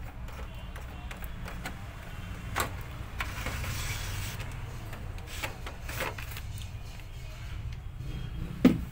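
A Xerox WorkCentre copier's cleaning assembly being slid out of the machine: scattered plastic clicks and a stretch of scraping about three seconds in, then two sharp knocks near the end. A low steady hum runs underneath.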